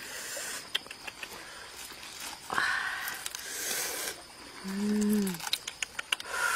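Whole grilled fish being pulled apart by hand: small crackles and clicks of crisp charred skin and scales, with breathy noises and a short hummed "mm" about five seconds in.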